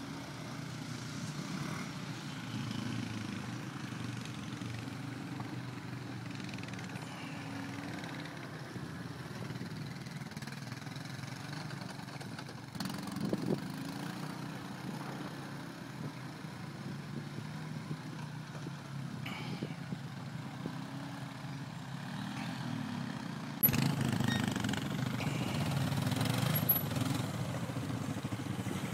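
Quad bike (ATV) engines running as the bikes ride along rough trails, a steady engine drone that gets louder in the last few seconds as one passes close.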